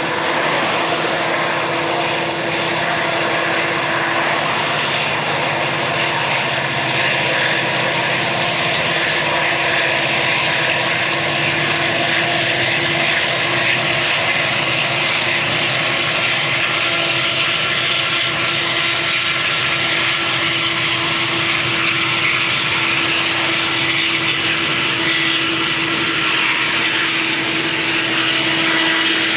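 Montana Rail Link helper locomotives, an EMD SD40-2 and an EMD SD70ACe, working hard as they push a loaded coal train upgrade: a loud, steady diesel drone with a constant hum, over the rumble of the train rolling past.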